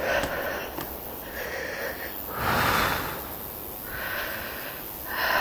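A walker breathing hard close to the microphone: about five breaths roughly a second apart, the one in the middle the loudest.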